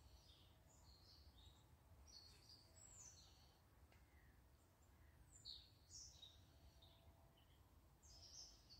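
Faint birdsong: groups of short, high chirps coming every two to three seconds over a low, steady background rumble.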